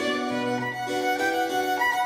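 Violin playing a melody of changing notes over a keyboard accompaniment.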